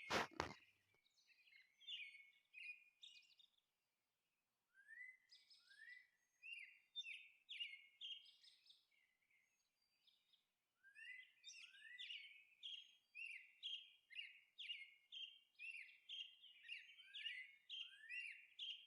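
Faint birdsong of short chirps and rising whistled notes. They come sparsely at first, then in a steady string of repeated chirps from about the middle.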